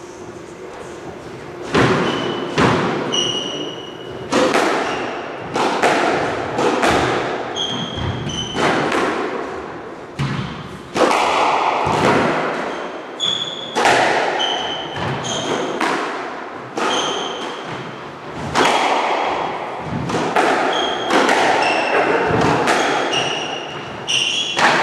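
A squash rally: the ball is hit by the rackets and bangs off the court walls, roughly once a second from about two seconds in, each hit echoing in the court. Shoes squeak in short chirps on the wooden floor between shots.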